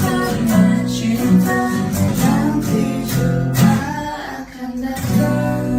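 Strummed acoustic guitar accompanying voices singing a song together.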